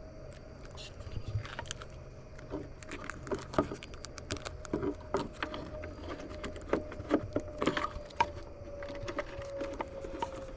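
Irregular light clicks, taps and rattles of hard plastic parts and wiring being handled and fitted into a truck's side-mirror housing, over a faint steady hum.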